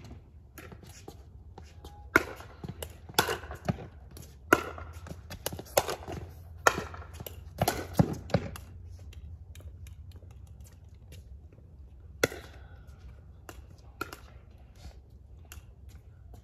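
Pickleball rally: sharp hollow pops of paddles hitting the plastic ball back and forth, quick exchanges for several seconds, then a couple of lone hits near the end.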